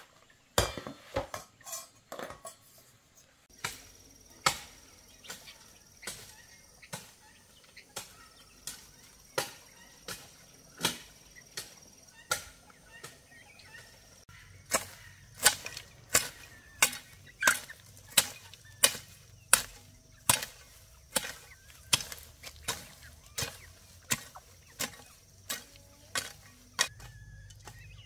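A blade tool chopping with repeated sharp strikes, spaced irregularly at first and then falling into a steady rhythm of about one and a half strikes a second from about halfway through.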